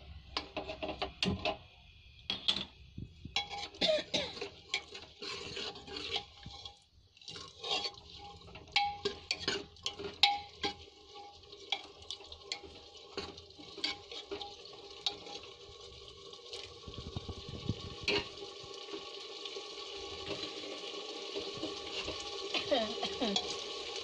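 Metal ladle scraping and knocking against the inside of a metal pot while stirring boiled black chickpeas into thick masala, many quick strokes. In the second half the stirring thins out and a steadier sizzling and bubbling of the chickpeas and masala roasting grows louder.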